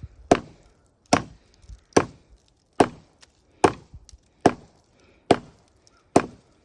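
Hatchet chopping into wood in a steady rhythm, eight sharp blows about 0.8 s apart, some followed by a smaller knock.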